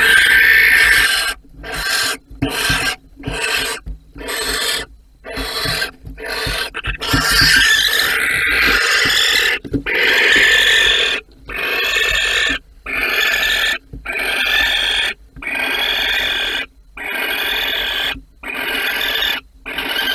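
Barn owls hissing: a long run of harsh, rasping hisses, short and quick in the first half, then longer hisses of about a second each with brief breaks between them.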